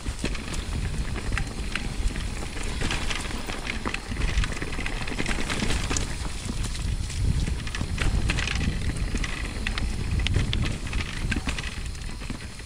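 Orbea Rise e-mountain bike riding over a rough trail: tyres crunching on gravel and stones and the bike rattling in a steady stream of clicks, with wind rumbling on the helmet-camera microphone.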